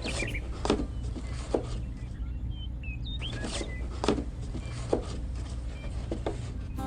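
Steady low mechanical hum with a sharp knock about once a second, and a few faint chirps near the middle.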